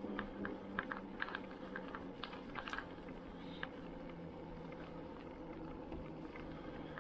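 Canyon Spectral:ON e-mountain bike rolling along a leaf-covered trail: tyres crackling over dry leaves and grit, with a steady low hum from the drive motor. The crackles are scattered and thin out in the second half.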